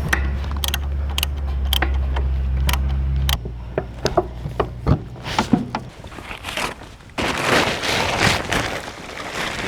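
Hand tools clicking and knocking on metal, scattered irregular strikes, as the engine's mounting bolts are worked in. A steady low hum underneath stops about a third of the way in, and near the end a steady rushing noise takes over.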